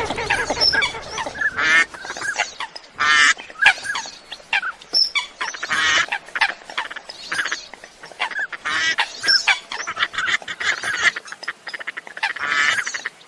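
Waterfowl calling, ducks and water hens: a steady run of short, repeated calls, several birds overlapping.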